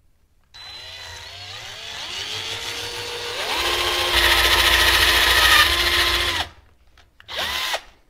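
Cordless drill boring through a thin metal bracket plate: the motor's whine rises in pitch as it speeds up, runs at full speed for about two seconds, then stops, with a short second burst near the end.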